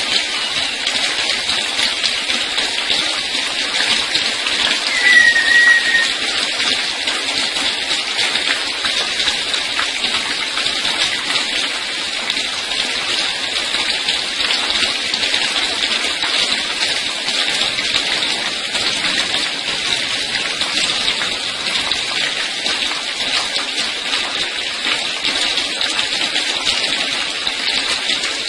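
Water sprayed over a bird like rain: a steady hiss of falling spray. A short bird chirp comes about five seconds in.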